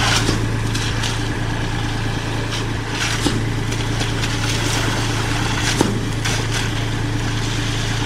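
Diesel engine of a concrete pump truck running steadily, with a few scattered sharp knocks.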